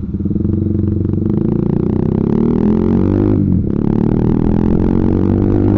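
Honda CBR150R's single-cylinder engine pulling away and accelerating, its note rising steadily, with a brief dip in the middle for a gear change.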